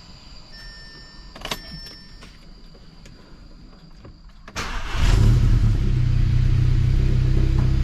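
Audi A3's EA888 turbocharged four-cylinder engine being started for the first time after new port injectors are fitted. At first only a click and a faint high whine are heard. About four and a half seconds in the engine cranks briefly, catches and runs steadily.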